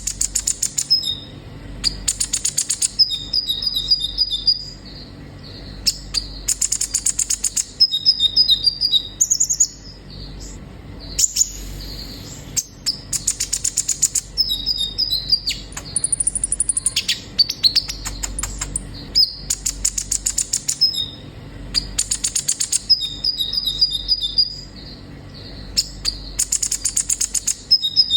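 Purple-throated sunbird ('kolibri ninja') singing its full song: a fast, very high trill followed by short two-note phrases stepping down in pitch, the pattern repeating every three to four seconds.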